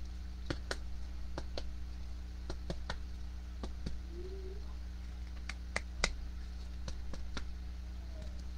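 Scattered faint clicks and taps over a steady low electrical hum, with a short low sliding tone about four seconds in.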